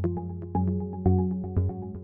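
Background music: short repeated notes over a steady beat about twice a second.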